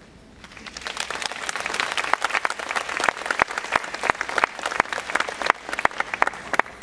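Audience applauding, a dense patter of many hands clapping that starts about half a second in, builds within the first second or two, and stops near the end.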